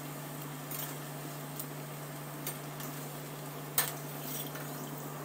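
Chakri deep-frying in hot oil with a steady sizzle, under a steady low hum, while a steel slotted spoon clinks against the steel kadai about five times, the loudest clink nearly four seconds in as a chakri is lifted out.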